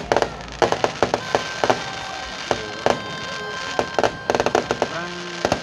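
Fireworks going off: sharp bangs and crackles in quick, uneven clusters.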